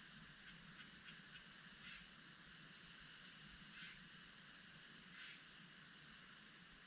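Faint short bird calls repeating about every second and a half, with a few thin high chirps between them, over a steady hiss.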